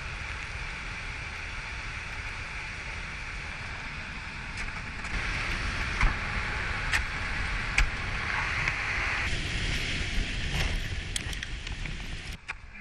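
Ice axe picks striking hard ice, a few sharp cracks about a second apart near the middle, over the steady rushing roar of the waterfall and low wind buffeting on the microphone.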